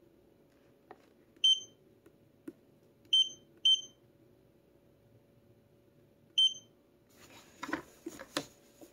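Four short high beeps from the Lunix LX3 hand massager's touch control panel as its settings are tapped, two of them close together. Near the end, a couple of seconds of rustling and clicks from handling.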